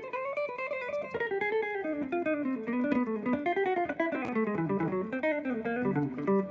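Acoustic guitar picked in a quick run of single notes, the melody wandering up and down in pitch.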